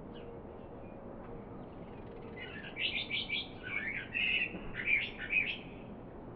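A small songbird singing a quick burst of high chirps and trills lasting about three seconds, over a steady outdoor background hiss.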